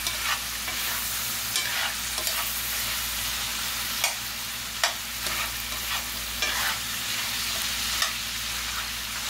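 Pork and Cajun smoked sausage with onions sizzling in a cast-iron Dutch oven, with a metal spoon scraping and clicking irregularly against the pot as the food is stirred. The meat is starting to brown on the bottom of the pot.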